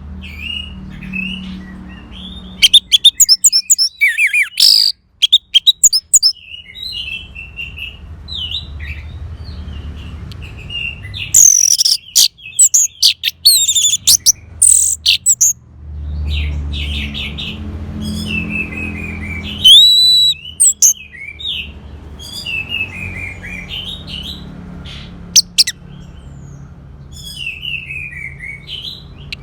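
Orange-headed thrush singing a long, varied song of quick chirps, slurred whistles and fast trills, with a rattling trill about 3 seconds in and another about 12 seconds in. A low steady hum runs underneath.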